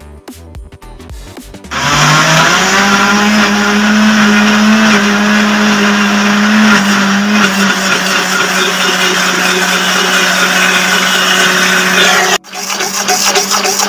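Electric countertop blender starting up about two seconds in, its motor rising quickly to speed and running loudly and steadily as it chops oats and apple pieces. It drops out suddenly near the end, then runs again.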